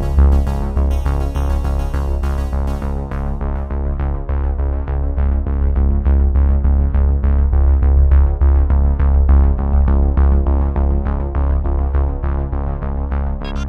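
Background music with a steady beat, held synthesizer-like tones and a pulsing bass; its high end fades away about three seconds in and comes back near the end.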